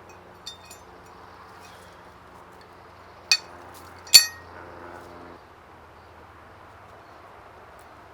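Two sharp clinks with a brief ring, just under a second apart, the second the louder, after a smaller click near the start: hard objects knocking together. A faint steady hum underneath stops about two thirds of the way through.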